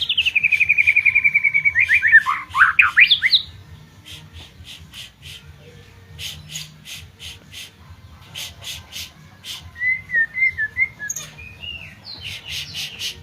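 White-rumped shama singing loudly. A fast trill slides down in pitch, then come quick rising and falling sweeps, a run of sharp clicking notes, a short warble, and near the end another fast trill.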